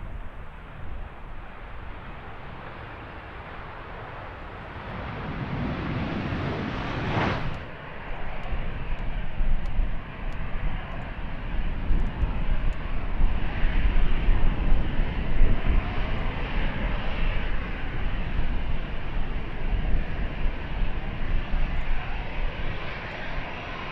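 Jet airliner engines running at high power, a loud rushing noise with a deep rumble. It builds, breaks off sharply about seven seconds in, then goes on louder and steadier.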